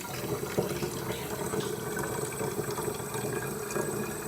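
Hot water running from a tap into a garden spray bottle, filling it with a steady rush of water.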